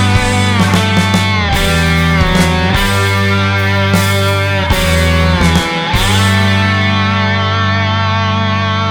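Instrumental rock background music led by guitar, with sliding bent notes over a heavy bass; about six seconds in it settles into one long held note.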